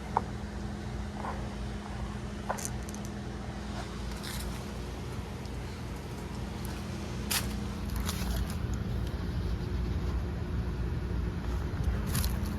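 Goodman R32 heat pump outdoor unit running in heat mode: a steady compressor and fan hum, with a few light clicks scattered through it.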